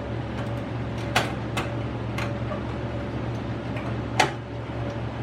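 A few sharp clicks and light knocks of computer parts being handled as the CPU is set back into its motherboard socket, the loudest about four seconds in, over a steady low hum.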